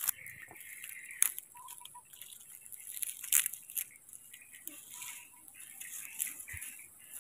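Dry leaf litter and twigs rustling and crackling as a baby monkey moves over the forest floor, with two sharp snaps, about a second in and about three seconds in.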